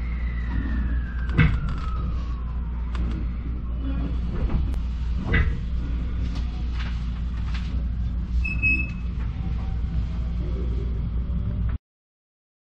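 Electric commuter train pulling away from a station, heard from inside the carriage: a steady low rumble with a high whine falling in pitch over the first few seconds and a few sharp knocks from the wheels on the track. The sound cuts off abruptly near the end.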